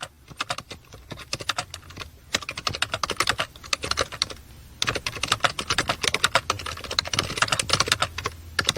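Rapid, irregular clicking and tapping, like fast typing on a keyboard, with a short lull a little before halfway.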